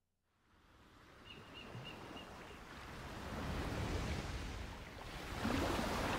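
Ocean waves and wind fading in from silence and swelling, with a louder wave surge near the end. Four faint short high pips sound about a second in.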